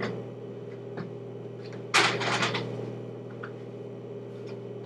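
Boxes, packaging and accessories being moved around on a desk: a few light clicks, and a short clatter about two seconds in, over a steady low hum.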